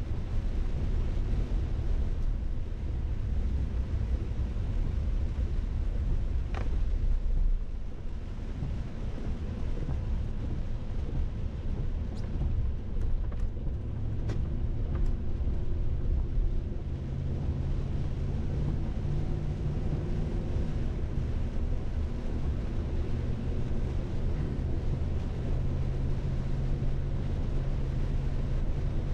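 Steady low rumble, with a low steady hum joining a little past halfway and a few faint ticks near the middle.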